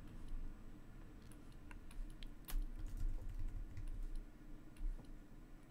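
A few faint, irregular clicks of computer keys and mouse buttons while working at a computer, the loudest about two and a half seconds in, over a faint steady low hum.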